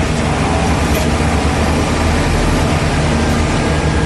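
Vibratory pile driver running: a loud, steady heavy-machine drone with a deep low hum underneath.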